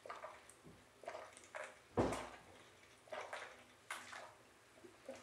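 A person gulping beer from a tall boy aluminium can: a string of separate swallows with the beer sloshing in the tipped can, the loudest about two seconds in, and a sharp click near the end.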